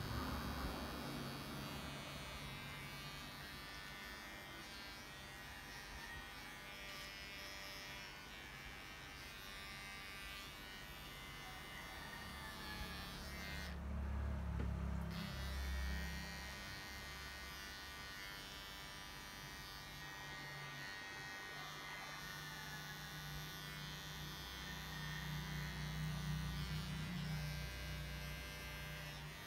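Electric dog grooming clippers running with a steady buzz. The buzz gets heavier and louder for a couple of seconds about halfway through, and again near the end.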